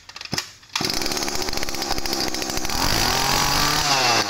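A Yanmar 25cc two-stroke brush cutter engine starts suddenly about a second in and runs loud and sharp, its revs dropping near the three-second mark and then climbing again.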